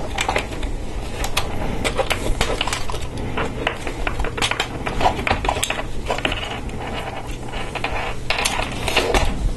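Hard plastic LEGO Technic parts clicking and rattling as hands push pins into beams and handle the model: a quick, uneven run of small sharp clicks.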